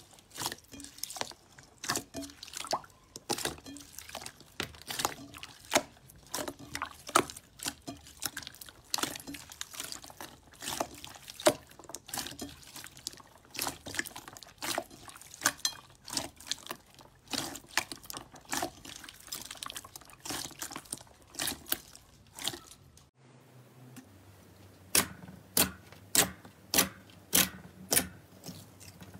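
Slime being squeezed and pressed by hand, making quick, irregular wet clicks and pops. About 23 seconds in the sound changes abruptly to a steadier run of sharp clicks, nearly two a second.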